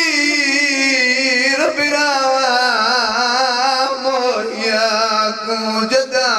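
A man chanting a Punjabi lament verse into a microphone, holding long notes with a wavering vibrato that slide from pitch to pitch.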